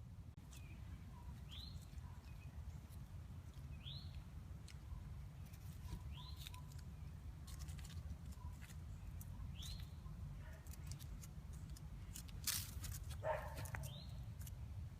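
Squirrel calling: a short, high-pitched call that rises and falls, given five times a few seconds apart, with faint softer notes between. A brief rustle about two-thirds of the way in.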